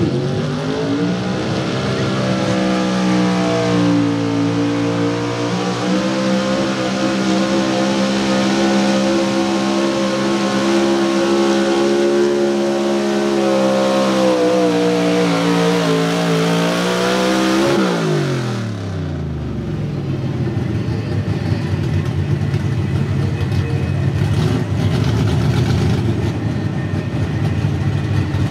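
Small-block Chevy V8 of a 4x4 pulling truck held at high revs under full load while dragging a weight-transfer sled, its pitch rising and dipping a few times. About 18 seconds in the throttle shuts and the engine note drops steeply to a lower, rough-running rumble.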